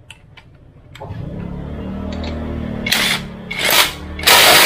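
Cordless impact wrench spinning a car's lug nut onto its wheel stud with a steady motor whir, after a few light clicks as the socket is fitted. The wrench then hammers in two short bursts and finally in a long, loud burst near the end as the lug nut is driven tight.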